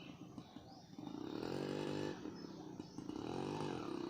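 Honda H100S's single-cylinder two-stroke engine idling, then revved twice, the pitch rising and falling back each time.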